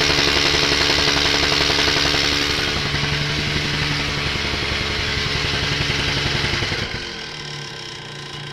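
Wacker Neuson BS 60-2i rammer's two-stroke engine running fast with a rapid, even beat. About seven seconds in it drops back to a quieter idle.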